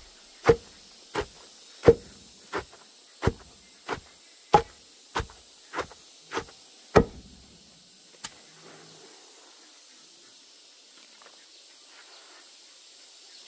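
Steady rhythm of hand-tool blows on a hard material, about three every two seconds, stopping about seven seconds in, with one lone blow a second later. A steady high hiss runs underneath.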